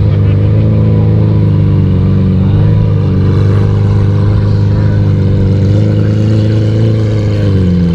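A car engine running at a steady idle close by. Its pitch wavers slightly and dips briefly near the end.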